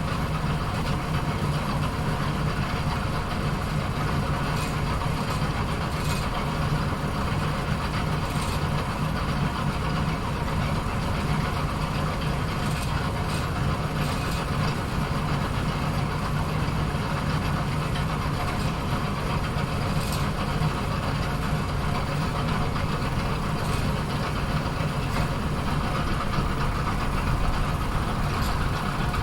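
Bowling alley pinsetter machine running with a steady mechanical hum, and a few faint clicks here and there.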